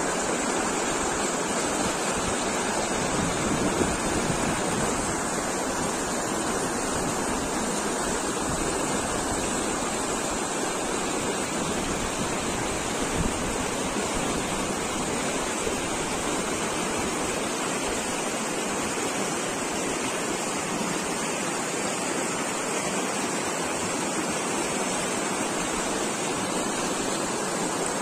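Shallow, rocky mountain river rushing over stones and through a small cascade, a steady rush of white water.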